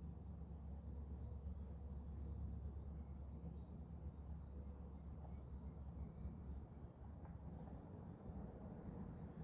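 Faint, scattered high chirps of small birds over a steady low rumble, which eases about two-thirds of the way through.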